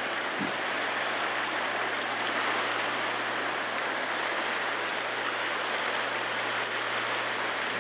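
Steady rushing of wind and wind-driven waves on a choppy lake, an even hiss with no distinct events.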